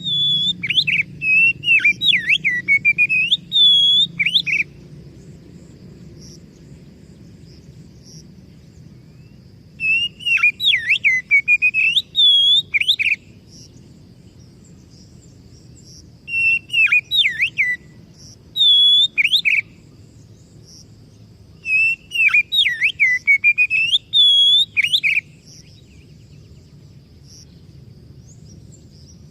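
Oriental magpie-robin (kacer) singing in bursts of loud, swooping whistled phrases and chirps, five bursts a few seconds apart with pauses between. A faint steady low hum lies underneath.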